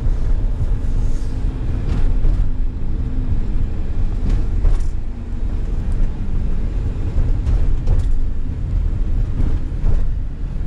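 Steady road noise heard from inside a delivery van's cab while driving: a low rumble of engine and tires, the new winter tires humming on the road, with the odd faint knock.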